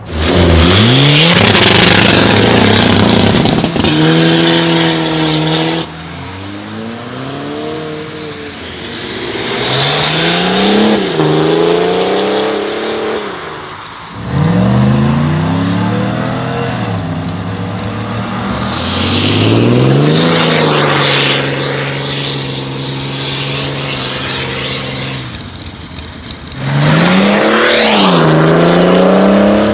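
A series of diesel cars accelerating hard away, one clip after another. Each engine's pitch climbs, drops back at a gear change and climbs again, and the loudest pulls come right at the start, about halfway and near the end, with sudden jumps in loudness between clips.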